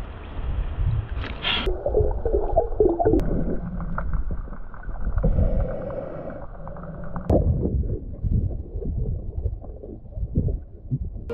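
Water gurgling and sloshing close against the microphone, growing more muffled about two seconds in and again past the middle, with a few sharp knocks.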